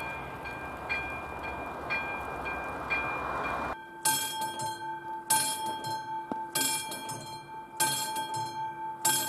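Level crossing warning bell ringing about twice a second over the rumble of a passing train. About a third of the way in the sound cuts to a different crossing's bell, striking more slowly, about once every second and a quarter.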